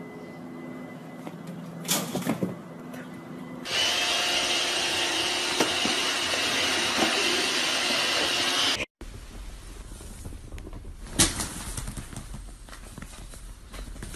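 A robot vacuum cleaner runs with a steady, even whir for about five seconds in the middle. Quieter room noise comes before and after it, with a few knocks early on and one sharp knock later.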